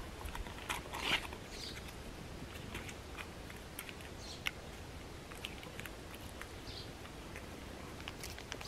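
A Belgian Malinois chewing food, with scattered crisp crunching clicks, the loudest about a second in.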